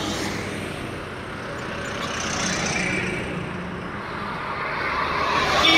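Heavy lorries passing close by on a highway: engine and tyre noise swells as each goes by, then fades. The noise rises again to its loudest near the end.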